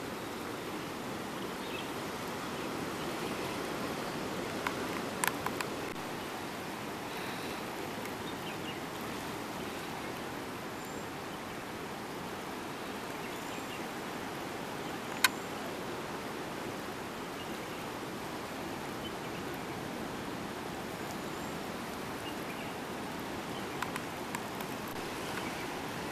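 Steady wash of sea surf on a beach, with a few sharp clicks: a short cluster about five seconds in, a single louder one around the middle, and another small cluster near the end.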